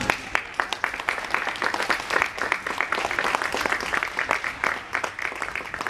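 Audience applauding: many hands clapping in a steady, dense patter, starting as the music stops.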